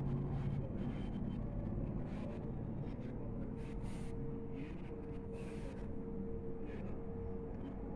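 Steady low background hum and rumble with a faint steady tone, and scattered soft, hissy ticks.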